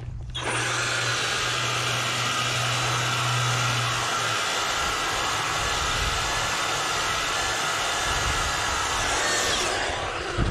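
EGO POWER+ cordless power head with its 22-inch bristle brush attachment running, the spinning bristles scrubbing the asphalt and sweeping sand and debris along the pavement edge. The steady whir and brushing start about half a second in and stop shortly before the end.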